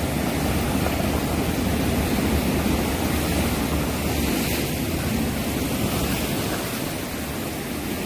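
Sea surf breaking and washing over a rocky shore: a steady rushing noise with a deep rumble under it, easing slightly near the end.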